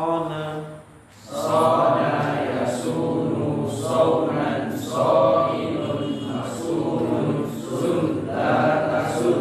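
A group of voices reciting an Arabic verb conjugation table (tasrif) in unison, in a sing-song chant, one short form after another, with a brief pause about a second in.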